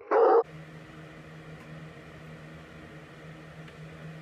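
A dog's single short bark, then a steady low hum with faint hiss: room tone.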